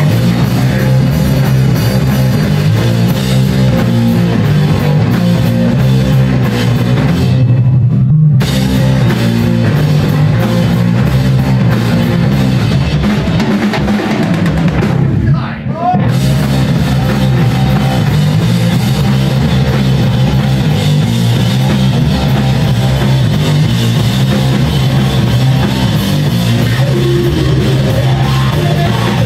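Live rock band playing loud: distorted electric guitar, bass guitar and drum kit. The upper frequencies drop out in two short breaks, the second about halfway through with a brief dip in loudness.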